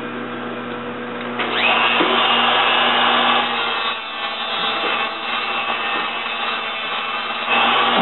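Rotary tool with a cutoff wheel spinning up about a second and a half in, then grinding through the steel pin of a 1970 Triumph TR6 door hinge to cut its top off: a high whine over a harsh grinding hiss that dips briefly around the middle.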